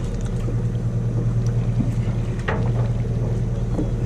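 Party fishing boat's engine running with a steady low hum, with a few short clicks or knocks over it, the clearest about two and a half seconds in.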